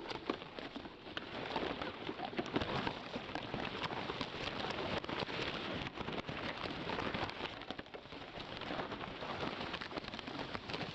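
Dry grass and rushes rustling close to the microphone: a dense crackling patter of tiny clicks over a soft hiss, swelling and easing.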